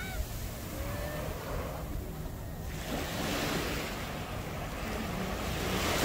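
Small waves washing up on a sandy beach: a steady hiss of surf that swells again near the end.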